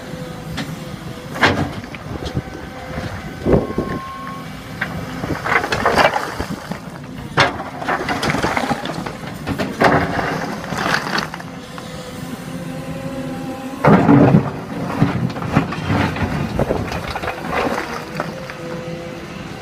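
Cat 312E L tracked excavator's diesel engine and hydraulics running steadily while its steel bucket scrapes into a pile of old bricks, with repeated clatters of bricks knocking and tumbling against the bucket; the loudest clatter comes about fourteen seconds in.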